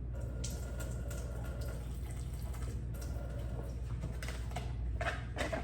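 Water pouring into pancake batter to thin it, more than was meant to come out, over a steady low hum.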